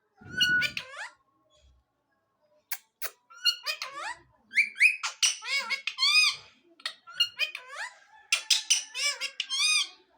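Pet Indian parrot calling: a short call at the start, two sharp clicks about three seconds in, then a rapid series of short, arched chirping notes until near the end.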